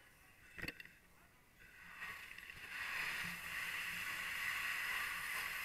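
A sharp knock about half a second in. From about two seconds a steady rushing hiss builds up and holds, typical of a fire hose nozzle flowing water into a smoke-filled room.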